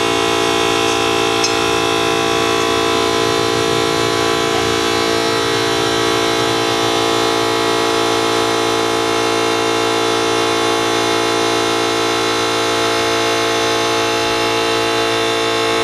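Air compressor running steadily, a constant hum with many overtones, while the tubeless motorcycle tire is inflated to seat its bead on the rim.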